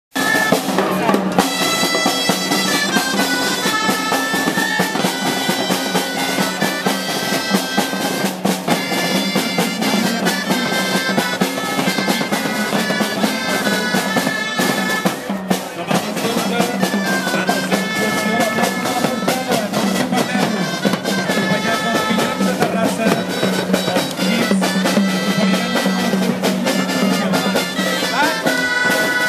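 Traditional street band of marching drums and shrill reed pipes: the drums beat a steady march rhythm while the pipes play a melody over a constant low drone.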